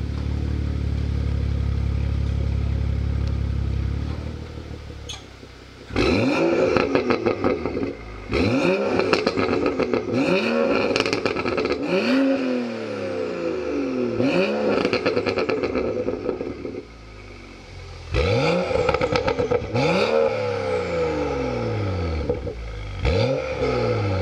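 BMW M235i's 3.0-litre turbocharged inline-six through an Armytrix valved exhaust, running at a steady fast idle just after start-up that drops off about four seconds in. From about six seconds it is blipped again and again, about eight sharp revs that climb quickly and fall back, with crackles from the exhaust as the revs drop.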